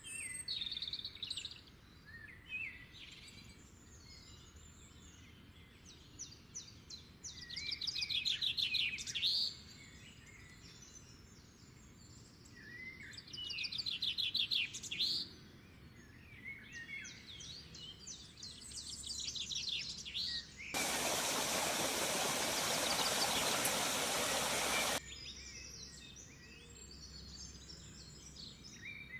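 Songbirds singing, several phrases of fast trills over a quiet background. About two-thirds of the way through, a steady rushing noise, louder than the birdsong, cuts in suddenly and cuts off just as suddenly about four seconds later.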